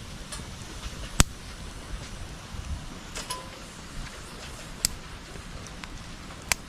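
Bonfire crackling steadily, with sharp pops: a loud one about a second in and others near three, five and six and a half seconds.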